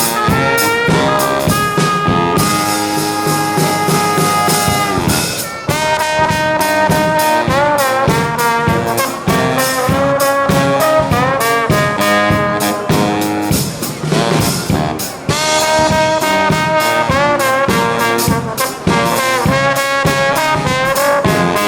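Live brass band playing an up-tempo pop cover, with trumpets and trombones carrying the tune over a steady drum beat.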